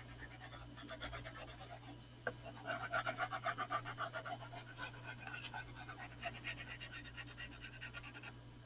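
Wax crayon rubbing and scratching on a paper plate in quick, repeated back-and-forth strokes as it is coloured in, louder for a stretch in the middle and fading near the end.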